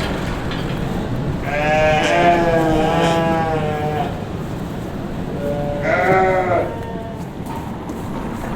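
Sheep bleating twice, a long wavering bleat and then a shorter one, over steady background noise.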